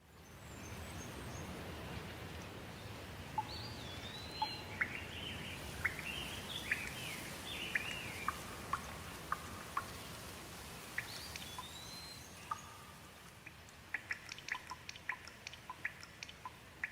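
Steady rain hiss fading in, with a songbird singing a series of clear whistled, slurred notes; one rising whistle phrase comes twice, about eight seconds apart. Near the end comes a quick run of short, sharp ticks.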